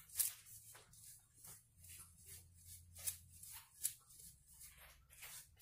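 Damp ragi flour being rubbed by hand through a fine stainless-steel mesh sieve, breaking up the lumps: faint, short, scratchy rasps about two a second, some louder than others.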